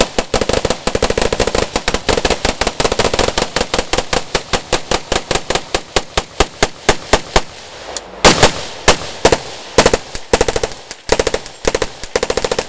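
Rapid gunfire from several AR-style rifles firing at once, a near-continuous string of sharp, loud shots at several a second. The firing pauses briefly about eight seconds in, then resumes with more shots.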